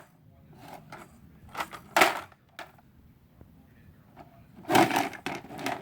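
A child's toy toolbox and the toys in it knocking and rattling as it is carried and handled: scattered clacks and knocks, the loudest about two seconds in and a short clatter near five seconds.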